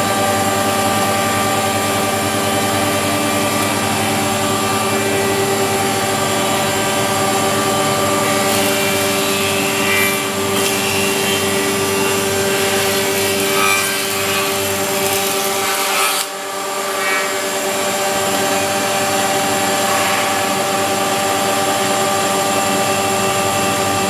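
Weinig four-sided planer running, its cutterhead spindle motors giving a loud, steady hum and whine of several tones at once. The sound dips briefly about two-thirds of the way through, then settles back.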